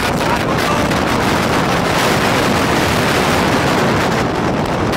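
Steady wind rush over the microphone of a motorcycle riding at speed, mixed with the bike's engine and tyre noise on the road.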